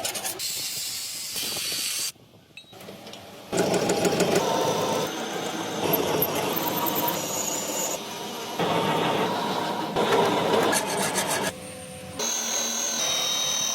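Workshop tool noise: a harsh scraping, rasping noise of metalwork, in several short stretches that cut in and out abruptly.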